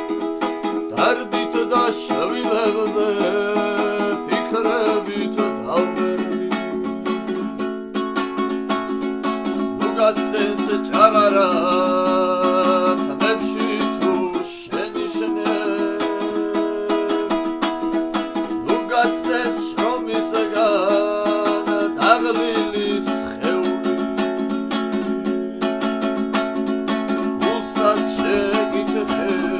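Panduri, the three-string Georgian folk lute, strummed continuously as folk song accompaniment, the chord changing a few times.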